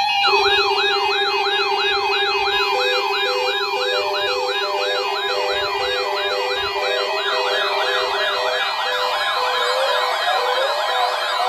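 Electronic siren wailing up and down rapidly, about three sweeps a second, layered over steady alert tones and an on-off beeping tone. A second siren joins about seven seconds in, and the low steady tone drops out soon after.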